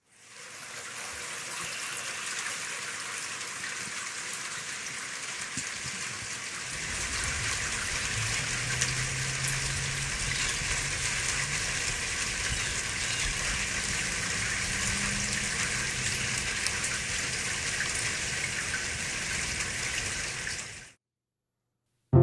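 Steady rain, with water trickling and splashing down a copper cup-style rain chain. A low steady hum joins about a third of the way in, and the sound cuts off suddenly near the end.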